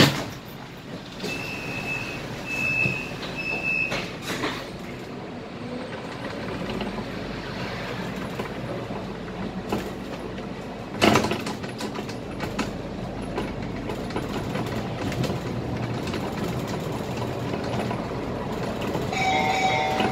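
Cabin noise inside a moving Scania K320 IA articulated bus: steady engine and road rumble with body rattles and occasional knocks, a sharp knock about 11 seconds in. Three short high beeps sound near the start.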